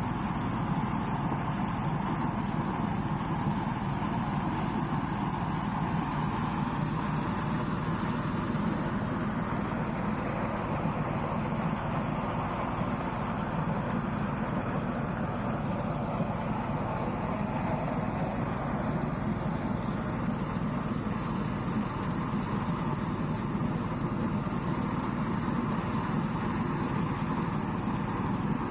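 Corn-harvesting machinery running steadily, a continuous engine drone with no breaks.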